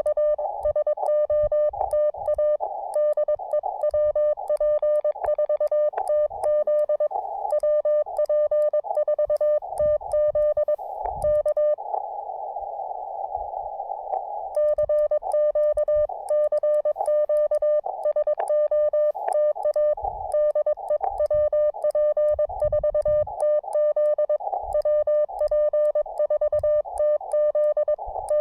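Morse code sidetone from a ham radio transceiver as the operator sends CW: a single steady mid-pitched beep keyed on and off in a fast dot-dash rhythm. Near the middle the keying stops for about two and a half seconds and the receiver's filtered band hiss comes up before sending resumes.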